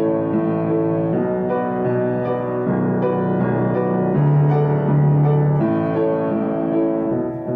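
Background music: slow piano-like keyboard notes and chords, held and changing about every half second.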